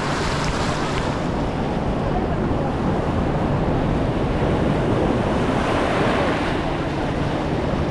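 Surf washing onto the beach, with wind buffeting the microphone; the wash swells a little past the middle.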